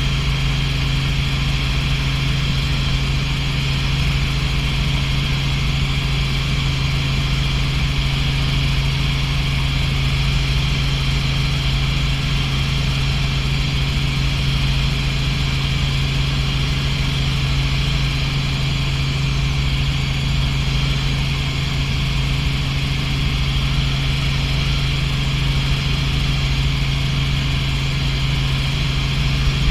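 Robinson R44 helicopter in steady cruise, heard inside the cabin: its engine and rotor make a constant loud drone with a strong low hum and an even hiss above it, without any change.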